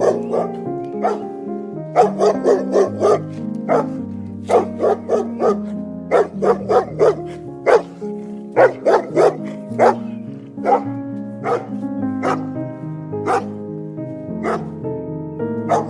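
A dog barking again and again in quick runs of several barks, over background keyboard music.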